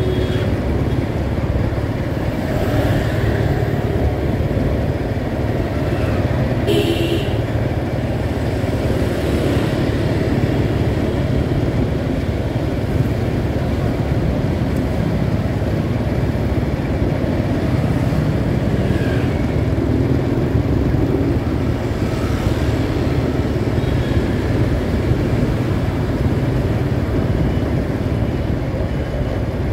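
Steady rumble of street traffic and motorbikes, heard while moving along a city road, with a short higher-pitched sound about seven seconds in.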